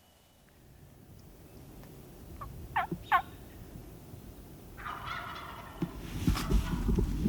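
Wild turkey gobbling in the woods: a couple of sharp falling calls, then a longer rattling gobble. Over the last second or so comes a run of low thumps, the loudest part.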